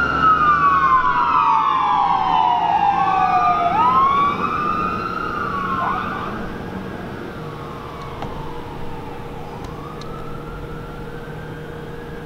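Fire apparatus sirens wailing on a code 3 response: two wails sweep up and down out of step with each other, then fade as the trucks pull away. From about four seconds in, a single slow wail carries on more faintly.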